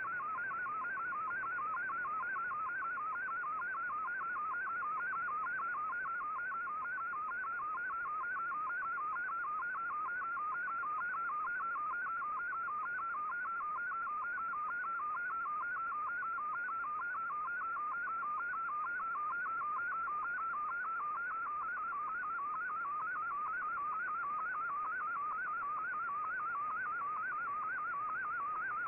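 Shortwave digital image signal: a Radiogram picture sent in Fldigi's MFSK image mode and received on an Icom IC-R8600, a steady warbling tone between about 1 and 2 kHz that repeats rapidly and evenly as each line of the picture is sent.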